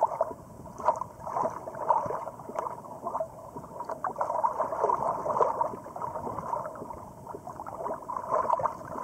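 Small ocean waves lapping and gurgling close to the microphone, which is held just above the water surface: a steady run of irregular little sloshes and splashes.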